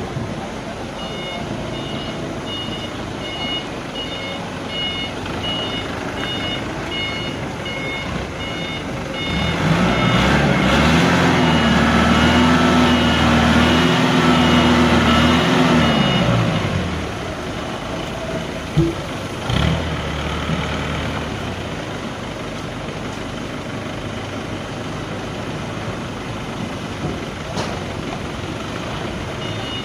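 A heavy vehicle's reversing alarm beeps about twice a second over a running engine. About ten seconds in the beeping stops while the engine revs up, holds for several seconds, then drops back, and a few sharp knocks follow. The beeping starts again near the end.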